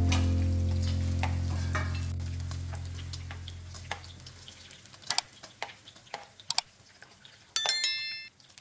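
Faint oil sizzle and scattered sharp clicks of metal tongs against the pan and a stainless steel strainer as fried tofu cubes are lifted out. A low held musical note fades away over the first few seconds, and a short bright chime rings near the end.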